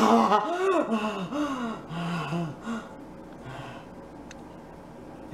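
A woman making wordless, theatrical gasping vocal sounds that rise and fall in pitch, dying away about three seconds in.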